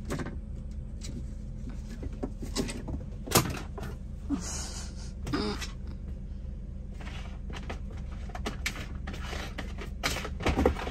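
Scattered knocks, clatters and rustles of a young caracal playing in and around a plastic litter box, with one sharper knock about three and a half seconds in, over a steady low hum.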